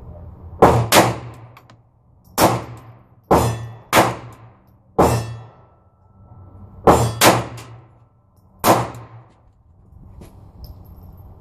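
Nine shots from a Ruger LCP II .22 LR pocket pistol, fired singly and twice as quick pairs, each shot trailing off in a short metallic ring from hits on steel targets.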